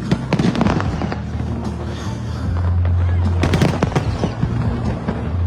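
Fireworks exploding in rapid clusters of sharp bangs and crackles: one volley in the first second and another about three and a half seconds in. Background music runs underneath.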